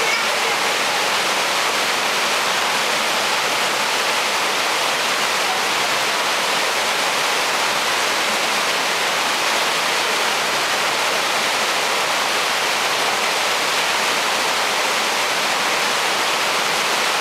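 Steady rush of water from a small waterfall spilling into a rocky stream and running over the boulders below it.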